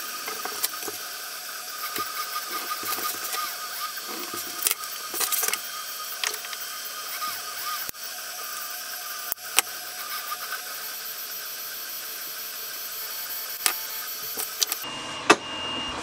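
Scissors cutting a paper printout: a run of quick sharp snips and clicks and paper rustling over a steady hum.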